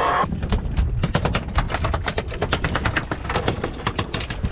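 Fishing reel clicking in a fast, irregular run of sharp clicks, several a second, while an albacore is fought on a bent rod.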